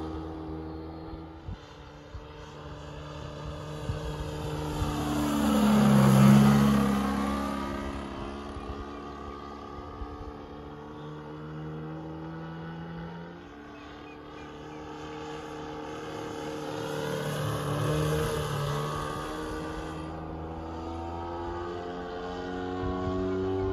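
The DA-100 twin-cylinder two-stroke gasoline engine of a large-scale RC Cessna running in flight. It passes close about six seconds in, loudest there, with a drop in pitch, then drones on at a distance and swells again around eighteen seconds as it comes round.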